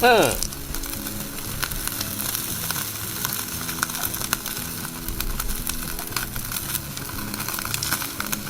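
Chicken-skin skewers sizzling over charcoal, the dripping fat popping and crackling in irregular small sharp ticks over a steady hiss.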